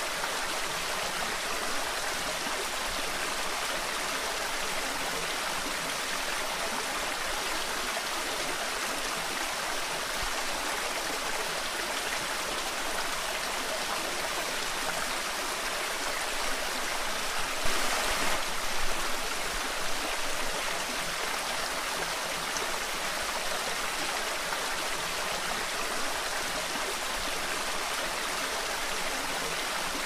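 Small waterfall cascading over rock ledges into a pool: a steady, even rush of falling water that grows briefly louder for about a second a little past halfway.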